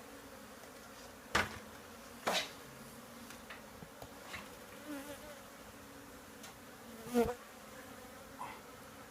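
Many honey bees buzzing steadily around an opened hive, with three sharp knocks, the loudest near the end, and a few lighter clicks from the hive being worked.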